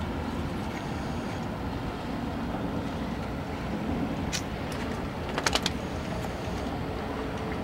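Steady low drone of an outboard motor on a small open fishing skiff moving across the harbour. A quick run of sharp clicks comes a little past halfway.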